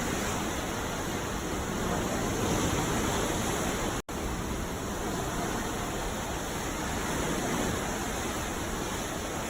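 Ocean surf washing onto a beach: a steady rush of breaking-wave noise that swells gently a couple of times. About four seconds in the sound cuts out for an instant and comes straight back.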